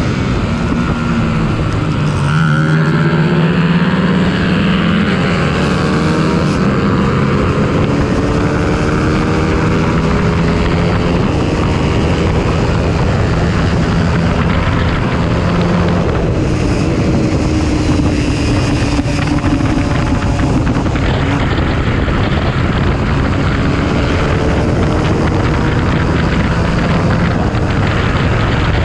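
Honda CBR125R's single-cylinder four-stroke engine running hard at high revs, rising and falling in pitch, under a steady rush of wind on the microphone.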